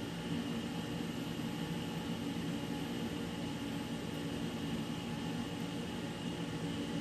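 Steady hum of running machinery or ventilation, with a low drone and a thin high whine that do not change.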